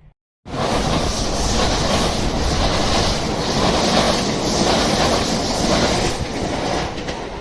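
A train running past close by, a loud steady rush of wheel and rail noise that cuts in abruptly just under half a second in.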